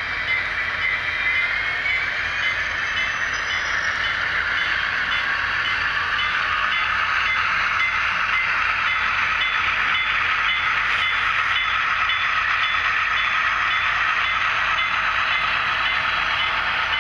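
HO scale model freight trains rolling past on adjacent tracks: a steady rushing clatter of small metal wheels on the rails, with a thin rising whine near the start.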